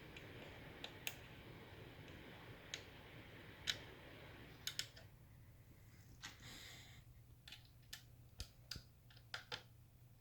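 About a dozen light, sharp clicks and taps, irregularly spaced, over a faint hiss that drops away about halfway through.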